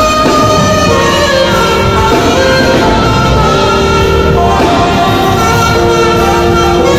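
Live saxophone playing a melody of long held notes with slides between them, over keyboard accompaniment.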